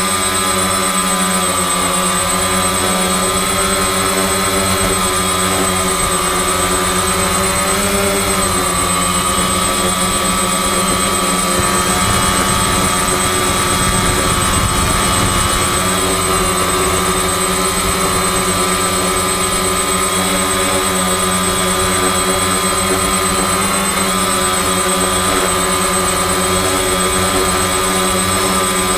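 FPV quadcopter's electric motors and propellers running steadily, a whine of several held tones that waver slightly with throttle.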